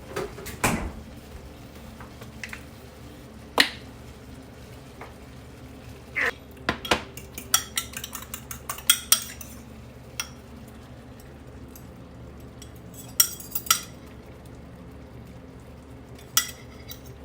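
Kitchen utensil clinking, knocking and scraping against cookware during stir-frying, in irregular sharp knocks that come thickest midway and again briefly later.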